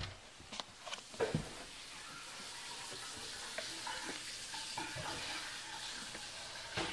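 A few sharp knocks and thumps in the first second and a half, then steady close-up rustling with faint scattered clicks, as of a toddler handling a string and brushing against carpet near the microphone.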